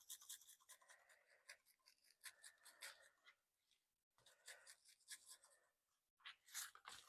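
Near silence with faint, scattered scratchy ticks as seasoning is put on a raw beef roast.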